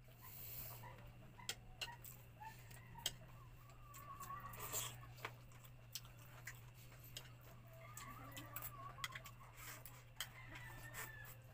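Faint eating sounds: chopsticks clicking against ceramic bowls and chewing, with sharp irregular ticks about once or twice a second over a steady low hum.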